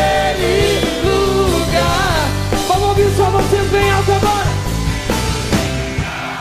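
Rock music playing: a full band with steady bass, regular drum hits and a bending melodic lead line.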